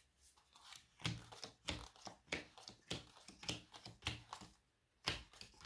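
Playing cards being dealt one by one onto a table: a run of soft, irregular taps and flicks.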